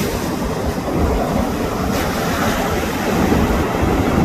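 Sea waves washing onto the beach, heard as a steady rushing noise, with wind buffeting the microphone as a continuous low rumble.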